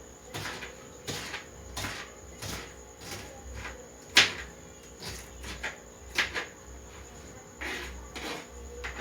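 Kitchen knife striking a cutting board while slicing a bell pepper, in uneven strokes about every half second; one stroke about four seconds in is much louder.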